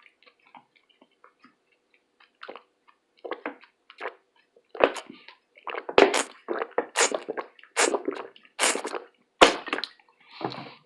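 A person chewing food close to the microphone: short wet chewing and smacking noises, faint at first, then louder and coming about once or twice a second from about halfway.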